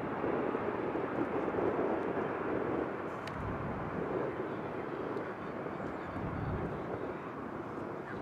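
Jet airliner engine noise at a distance: a steady rumbling hiss that eases slightly toward the end.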